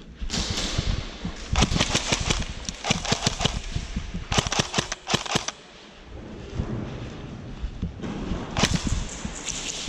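Airsoft guns firing in several rapid bursts of sharp clicks, with a short lull about six seconds in.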